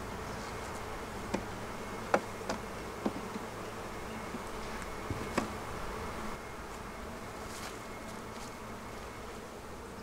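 Honeybees buzzing steadily around an open hive. About half a dozen sharp wooden knocks in the first half, from hive frames being handled and set into the box.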